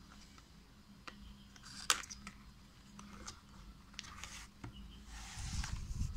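Small paperboard box being handled and opened: light taps and clicks of the card, a sharp snap about two seconds in, then rustling scrapes as the inner tray slides out of the sleeve near the end.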